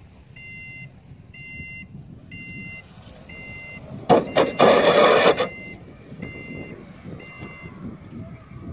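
Electronic two-tone beeps repeating about once a second, one held longer about four seconds in, typical of winch-launch signalling for a glider. A loud rush of noise runs over the long beep for about a second and a half.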